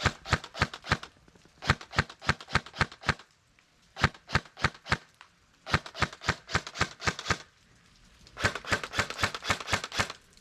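An airsoft rifle firing in about five rapid bursts of sharp cracks, with short pauses between the bursts.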